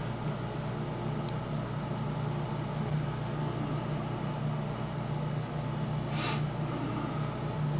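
Steady low electrical-sounding hum, with one short scraping rustle about six seconds in as small parts are handled on the workbench.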